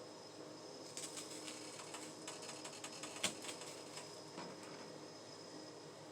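Knife scoring a halved onion on a cutting board: scattered light taps and clicks of the blade, with one sharper knock a little over three seconds in.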